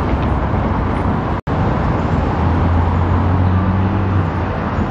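Steady road traffic noise of a busy city street, with a vehicle engine's low hum standing out for a couple of seconds in the second half. The sound cuts out for an instant about a second and a half in.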